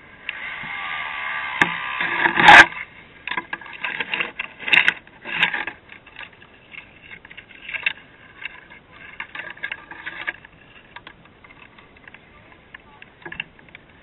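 Red dirt bike tipping over on a steep brushy bank: a rising rush of noise ends in one loud crash about two and a half seconds in, followed by scattered knocks and scrapes of the bike against branches and brush that die away after about ten seconds.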